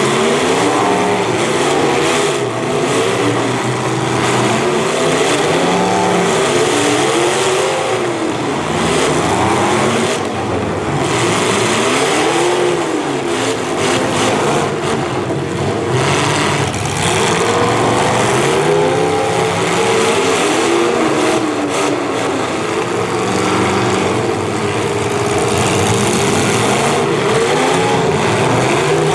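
Several V8 demolition derby car engines revving at once, their pitches rising and falling over one another without a break.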